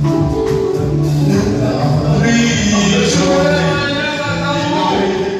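Men's voices singing a hymn, with long held notes.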